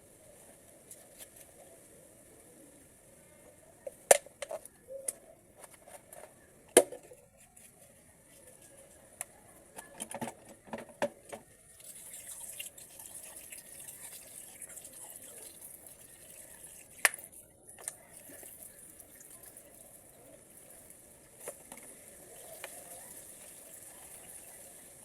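Transmission valve body parts being washed in cleaning liquid: dripping and splashing, with sharp metallic clinks as the parts are handled. A steadier hiss comes in about halfway through.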